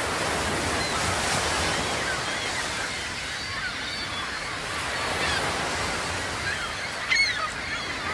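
Sea waves washing steadily, with short bird cries, seabirds by their sound, scattered over them and one louder cry about seven seconds in.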